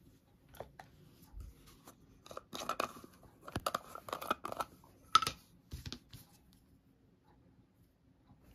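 A plastic jar of green craft paint being handled and its screw lid twisted off: a run of scraping, crackling plastic noises, then a sharp click about five seconds in, with a few softer clicks after.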